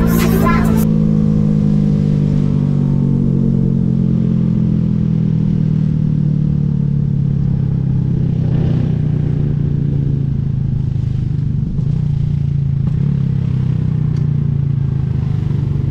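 Motorcycle engine running steadily, its pitch sinking slowly as it eases off, over a low road rumble.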